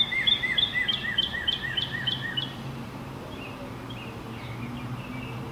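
A songbird singing a rapid run of repeated chirping notes, about three a second, that fades out about halfway through, followed by a few fainter chirps over a low steady background hum.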